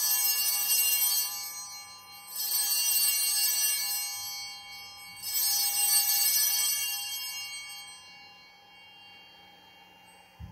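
Altar bells rung three times for the elevation of the chalice at the consecration of the Mass: three bright rings about two and a half seconds apart, each fading away over a couple of seconds.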